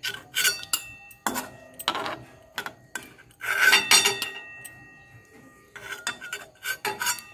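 Metal spatula knocking and scraping against a metal kadai as boiled bhetki fish steaks are lifted out of the water, each knock leaving the pan ringing briefly. A longer scrape comes in the middle, then more scattered clinks.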